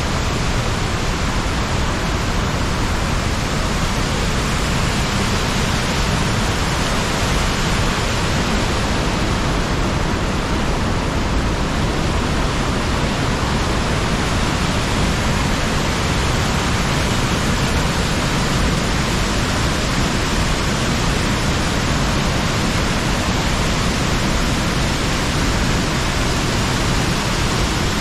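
The Rhine rushing over the rocks and rapids of the Rhine Falls: a loud, steady rush of white water.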